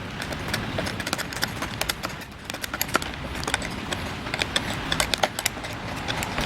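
Irregular clicks and light taps from hand tools and metal parts being handled while fitting a motorcycle's knuckle guard to the handlebar, over a steady hiss.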